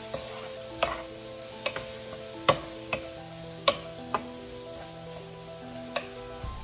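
A wooden spatula knocking and scraping against a frying pan in irregular clicks while sausage and chopped vegetables sizzle. Background music with held chords plays underneath.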